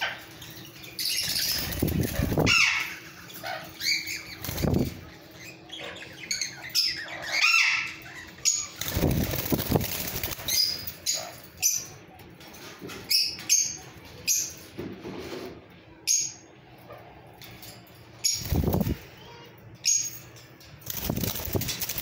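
Caged plum-headed parakeets flapping their wings in repeated bursts, with short high chirps between the bursts.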